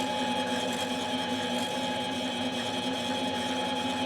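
A machine tool running steadily with an even hum and whine, taking a light cut off the base of an aftermarket MS660 chainsaw cylinder.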